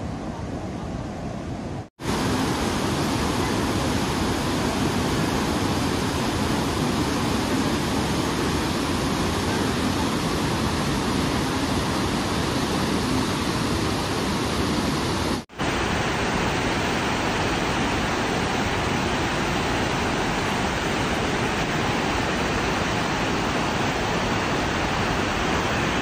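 Rushing white water of wide river rapids, a steady, loud hiss of water with no distinct tones. It breaks off for an instant twice, about two seconds in and again just past halfway.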